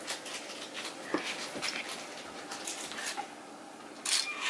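Scattered light clicks and taps of handling, then near the end the LEGO Boost Vernie robot's motors start running with a loud, steady mechanical whirr.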